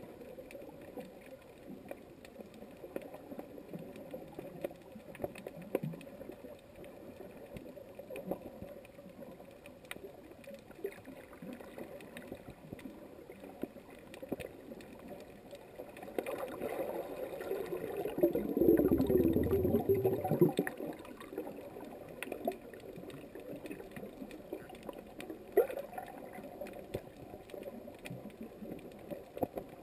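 Underwater noise picked up by a GoPro in its waterproof housing: a steady muffled wash with scattered small clicks and crackles. A louder, deeper rushing swell builds about sixteen seconds in and dies away a few seconds later.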